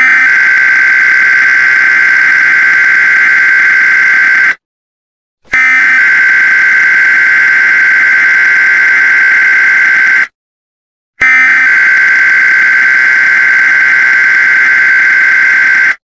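Emergency Alert System SAME header: a steady digital data tone sent three times, each burst about four and a half seconds long with a second's silence between. The long bursts carry the coded alert, a required weekly test for a long list of states.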